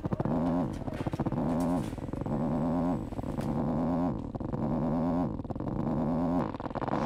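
Vibrator buzzing in a pulsing setting: a low buzz that swells and fades about once a second.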